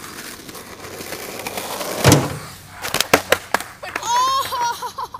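Skateboard wheels rolling on asphalt, growing louder as the rider approaches, then a loud crash about two seconds in as the skater wipes out, followed by several sharp clacks of the board hitting the road. Near the end the fallen skater yells.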